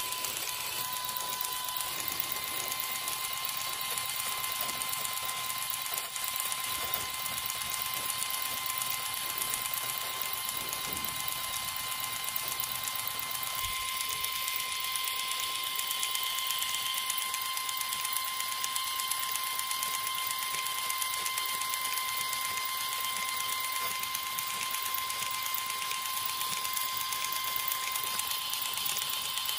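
Miniature fodder-cutting machine running off a model mini tractor, a steady high whine of its small drive motor with fast mechanical chatter as the spinning blades chop grass stalks fed into it.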